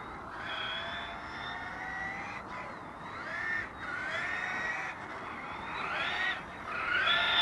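Radio-controlled car motors whining as the cars drive around, their pitch rising and falling with speed. Several cars overlap, and one rises louder near the end as it accelerates.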